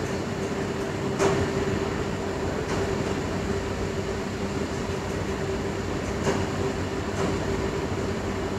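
Steady room background noise with a constant low hum, broken by a couple of faint clicks.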